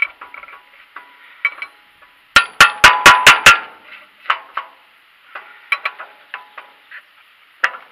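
Large steel open-end wrench clanking against the metal oil centrifuge rotor as its nut is tightened: a quick run of about six sharp, ringing metal knocks about two and a half seconds in, with scattered lighter clinks before and after.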